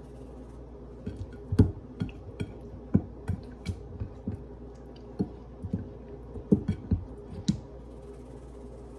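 A spice shaker being shaken and tapped over raw chicken, with hands working the seasoning in: a run of irregular sharp taps and clicks that starts about a second in and stops about a second before the end.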